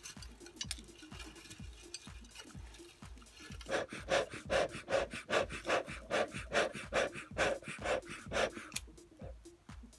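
Bellows of a beekeeper's smoker pumped in a run of about a dozen quick puffs, two or three a second, starting a little before four seconds in and stopping near the end, blowing air into smouldering pine needles to get them burning. Background music with a steady beat underneath.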